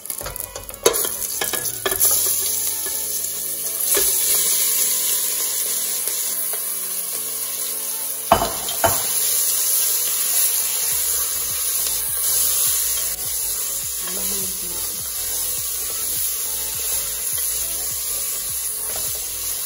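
Curry-seasoned goat meat sizzling as it fries in hot oil in an aluminium pot, with a wooden spoon stirring and scraping it. The curry is being fried hard on purpose ("burning" the curry). The sizzle comes up about two seconds in as the meat goes in, and a few sharp knocks of spoon and pot are heard, one about eight seconds in.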